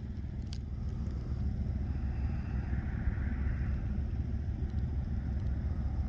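Portable generator running steadily at the campsite, a low even hum that grows a little louder over the first couple of seconds.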